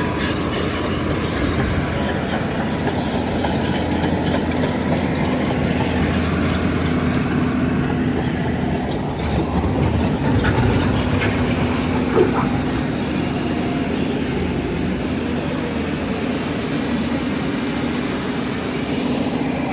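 Heavy earthmoving machinery running steadily under load: a diesel engine's deep drone with mechanical clatter, and a few sharp knocks about ten to twelve seconds in.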